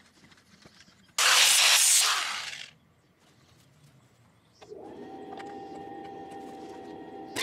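Corded angle grinder working the bent metal bracket of a scissor stabilizer jack. There is a loud burst of harsh noise about a second in that dies away after about a second and a half; from about halfway through, the grinder runs with a steady whine while it throws sparks off the metal.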